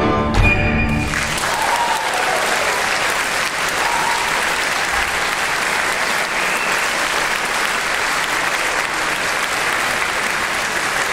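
The orchestra's closing chord ends about a second in, then a concert audience applauds steadily through to the end.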